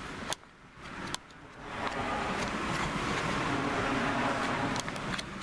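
A car passing on the street, its noise swelling in about two seconds in and staying loud, over a few sharp clicks of a metal spoon against a plastic bowl as cornstarch and water are stirred.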